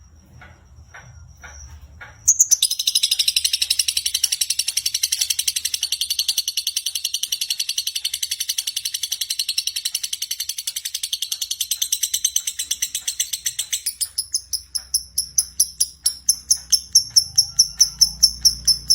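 Lovebird singing a long, rapid, unbroken chattering trill that starts about two seconds in and runs for about twelve seconds. It then breaks into separate sharp, high chirps repeated several times a second, growing louder toward the end.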